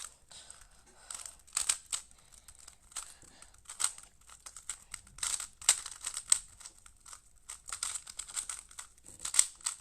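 A Rubik's cube being turned fast in a speedsolve: irregular runs of plastic clicks and clacks as the layers snap round, with short pauses between bursts of turns.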